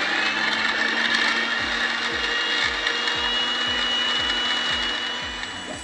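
Electric mixer grinder's small steel jar running at full speed, its blades grinding chopped ginger and salt into paste: a steady loud whir with a high whine that dies down near the end.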